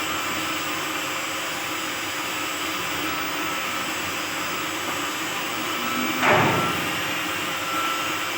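Steady rushing workshop noise, with one loud knock about six seconds in.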